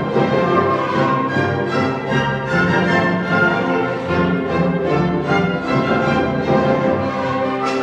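Symphony orchestra playing music for a folk dance, bowed strings to the fore, with a regular beat.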